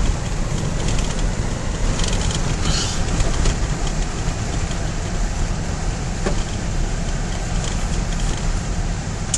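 Car driving on a snow-covered road, heard from inside the cabin: a steady low rumble of engine and tyres, with a patch of crackling about two to three seconds in.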